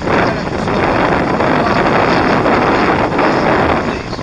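Wind buffeting the microphone on an open boat at sea: a dense, steady rush with no engine note or voice standing out.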